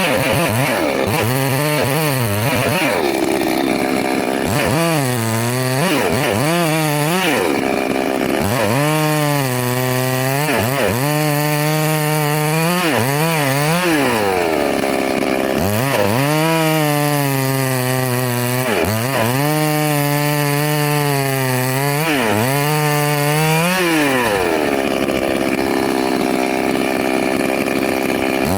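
Two-stroke chainsaw running at high revs while cutting wood, its pitch repeatedly sagging and climbing back as the chain bites in and frees up, with longer steady full-speed stretches in between.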